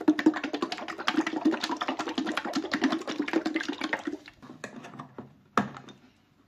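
Small metal tin of clear satin varnish shaken hard for about four seconds, a fast rattling and sloshing that mixes the varnish before use. A few light clicks follow, then a single sharp knock as the tin is set down on the wooden table.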